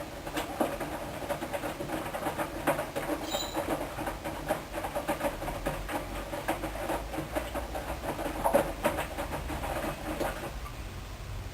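Hoover DYN 10124 DP washing machine drum tumbling the wash load: a dense run of rapid pattering and clicks over a low hum, which stops near the end as the drum comes to rest.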